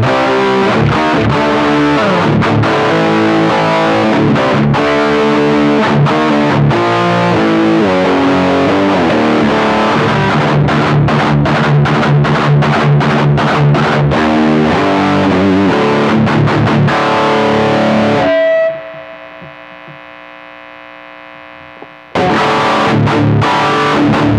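Electric guitar played through an Aesir high-gain distortion pedal into an amp: heavy distorted riffing. About 18 seconds in the playing cuts off to a quiet lingering ring, and the riffing comes back in about three and a half seconds later.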